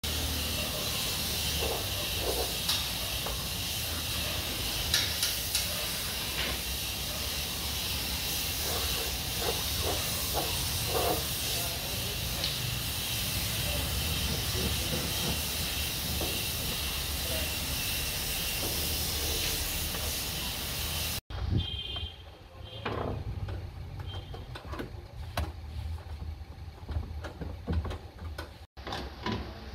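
Compressed-air paint spray gun hissing steadily while spraying paint on a vehicle floor pan, stopping abruptly about two-thirds of the way through. After that, scattered knocks and clatters.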